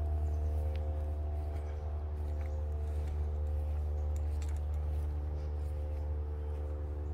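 A steady low mechanical hum holding several even tones without change, with a few faint ticks now and then.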